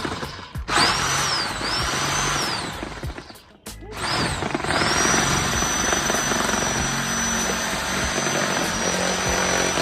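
Angle grinder cutting through side-skirt material along a marked line: two short cuts, each spinning up with a rising whine and winding down, then a longer steady cut starting about five seconds in.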